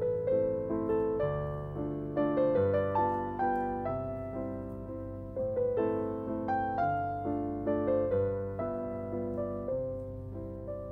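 Background piano music: a slow melody of struck notes, two or three a second, over lower held chords.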